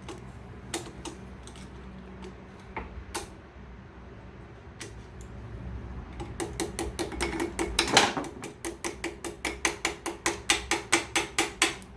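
Hand ratchet wrench working a turbo bolt: a few scattered clicks at first, then from about six seconds in a quick, even run of ratchet clicks, about four or five a second, with one sharp metal knock near eight seconds.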